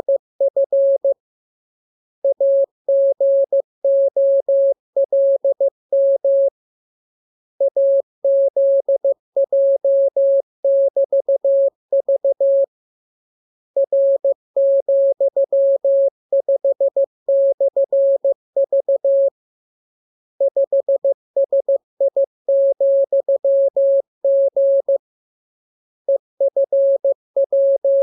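Morse code practice signal: a single steady mid-pitched tone keyed on and off in dots and dashes, sent in runs of characters several seconds long with pauses of about a second between them.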